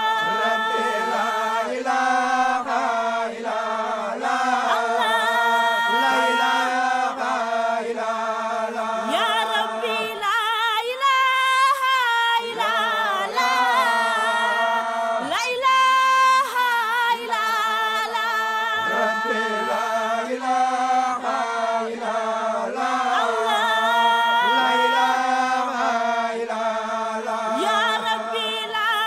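A group of men singing an unaccompanied Islamic devotional chant in Arabic, a steady low note held beneath a moving melody.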